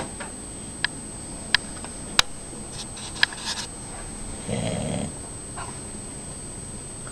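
A sleeping man snoring: one rough snore about four and a half seconds in. Several sharp clicks come before it.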